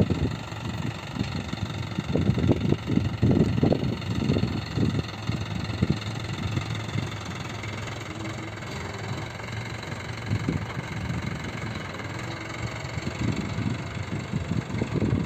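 Mahindra 585 tractor's diesel engine running steadily while its front loader works a bucket of wheat straw chaff. Irregular low rumbling surges come in the first five seconds and again near the end.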